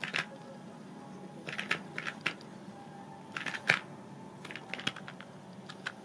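A cat pawing and batting at a folded-paper frog toy on a box: clusters of short dry taps, scratches and paper rustles, coming in several bursts.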